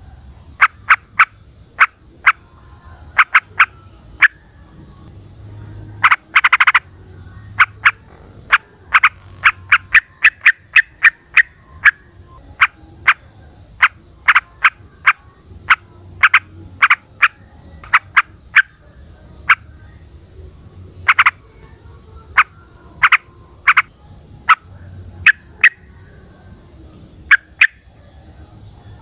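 Sooty-headed bulbul calling: a long string of short, sharp notes, single and in quick runs, over a steady, high, pulsing chirr of insects or frogs.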